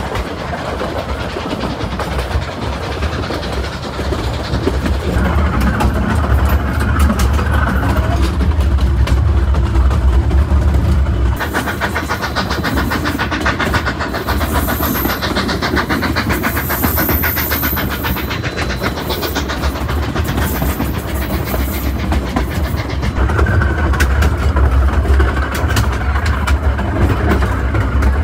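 Narrow-gauge steam train running: a steady low rumble, with a stretch of fast, even clatter in the middle.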